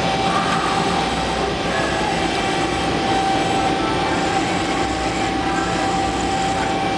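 Nisshinbo HTP-1000 CNC turret punch press running a cycle: a steady machine hum with a constant whine as the carriage shuttles the sheet, with no distinct punch strikes.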